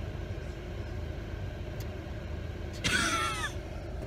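Car engine idling, heard from inside the cabin as a steady low hum. About three seconds in there is a brief high sound with a wavering pitch.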